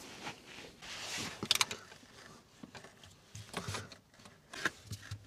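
Hands working at a car battery terminal and its cables: rustling and scraping with a few sharp metallic clicks, the loudest cluster about one and a half seconds in.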